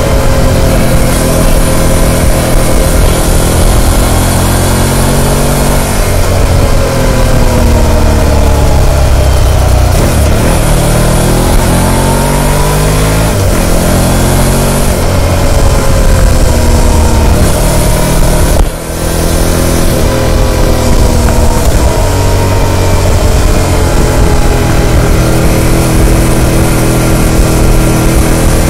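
Harley-Davidson Pan America Special's liquid-cooled Revolution Max V-twin through its stock muffler, heard on board while riding. The revs climb and drop back again and again as the rider accelerates and shifts through the gears, with a brief dip in engine sound about two-thirds of the way through.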